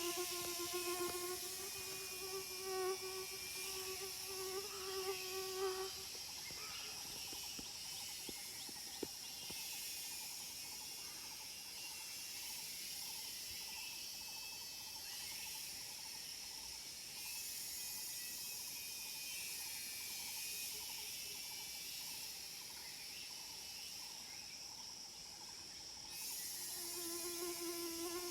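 Insects in a forest, with cicadas among them, keep up a steady high-pitched drone. A low buzzing hum runs under it, stops about six seconds in, and comes back near the end. Faint regular pulsing goes on in the gap.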